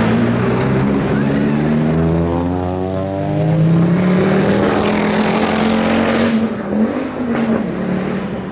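Rally car engine at high revs, its pitch climbing for a couple of seconds and then holding, with a few sharp cracks and dips in level near the end.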